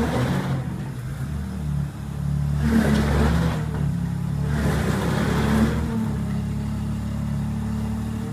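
Engine of a six-wheeled amphibious all-terrain vehicle running steadily, with two louder surges about three and five seconds in as the vehicle drives and turns.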